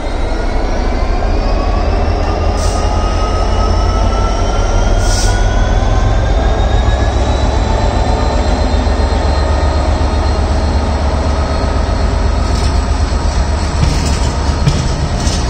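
Class 66 diesel locomotive's two-stroke V12 pulling away with a train of engineering wagons: a deep engine rumble under a whine that rises steadily in pitch as it gathers speed, with a few short clanks.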